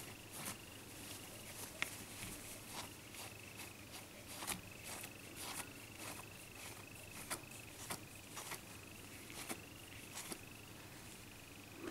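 Cotton cloth rubbing over a smartphone's bare LCD glass: faint, irregular soft ticks and scuffs as the cloth wipes off small shards of broken screen glass. A thin steady high whine runs underneath.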